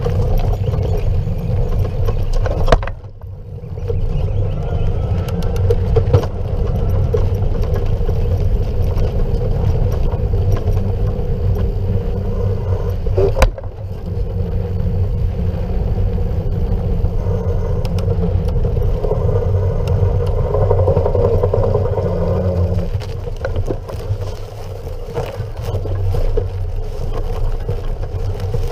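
Wind rushing over the action camera's microphone and tyres rolling over a sandy dirt track as a Haibike Overvolt electric mountain bike is ridden, with a steady rumble. Two sharp knocks come through, a few seconds in and about halfway through.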